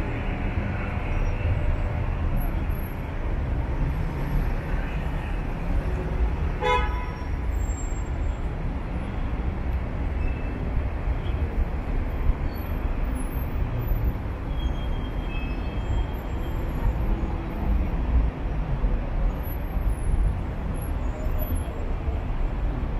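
City street traffic noise, a steady low rumble of vehicles, with one short car horn toot about seven seconds in.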